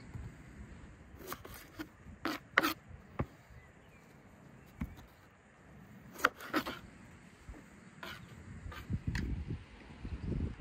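Kitchen knife cutting eggplant on a wooden cutting board: a dozen or so irregular sharp knocks as the blade strikes the board, with pauses between cuts.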